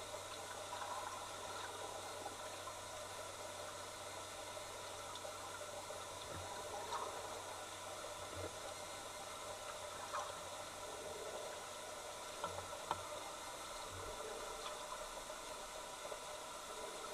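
Steady muffled water hiss heard through an underwater camera in a pond, with a few faint, soft low knocks.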